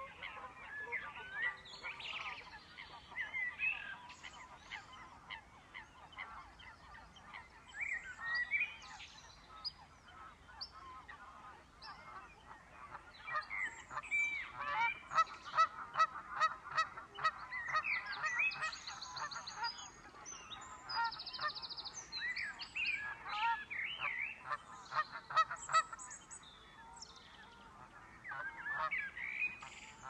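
Many wetland birds calling over one another, busiest through the middle of the stretch, with a quick run of ticking notes among them.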